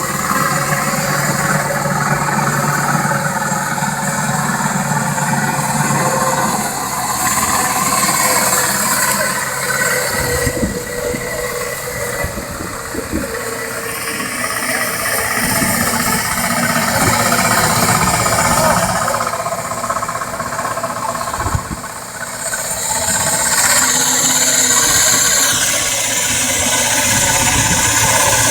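Combine harvester running steadily during harvest work, its engine and machinery shifting in level, with a high whine that drops in pitch near the end.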